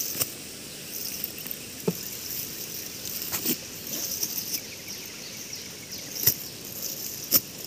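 Steady high insect shrilling, with rustling and a few sharp crackles as a cast net is handled and dragged over dry leaf litter and fallen palm fronds. The loudest crackles come near the end.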